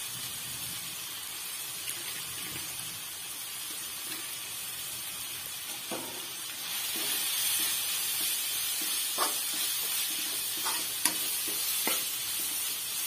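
Onion-tomato masala sizzling in oil in a kadai, the sizzle growing louder about halfway through. A spatula clicks and scrapes against the pan a few times as it is stirred.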